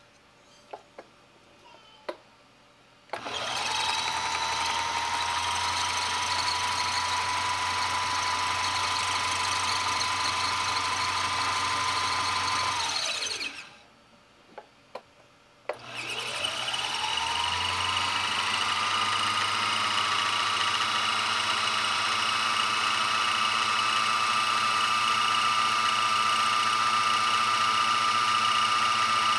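Homemade pickup coil winder built from a sewing machine, winding enameled wire onto a humbucker bobbin. Its motor starts about three seconds in with a rising whine, runs steady, winds down with a falling pitch, then spins up again after a short pause with a few light clicks and climbs slightly in pitch near the end.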